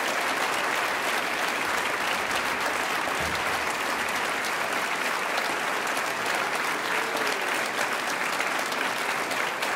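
A large audience applauding: dense, steady clapping with no let-up.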